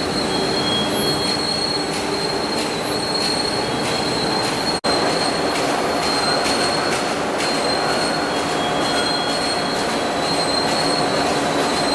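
Steel coil slitting machine running: a steady, loud metallic din with thin high squealing tones and scattered irregular clicks. The sound drops out for an instant a little before the middle.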